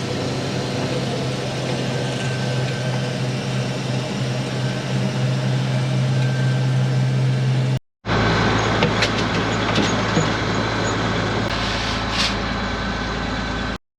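Combine harvester's diesel engine running steadily, a constant low drone. About eight seconds in, the sound cuts abruptly to a rougher, noisier engine rumble.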